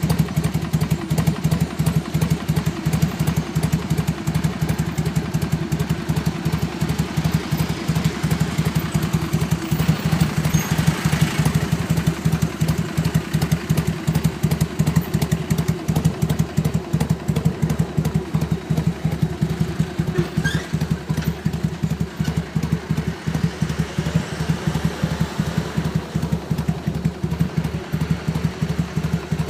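Harley-Davidson Sportster's air-cooled V-twin engine idling steadily through its stock exhaust pipes, with an even, pulsing exhaust beat.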